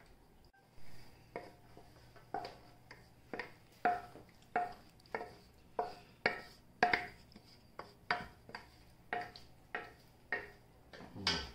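Wooden spoon scraping and knocking thick ragout out of a stainless steel pan into a ceramic baking dish, about two strokes a second, each with a brief metallic ring.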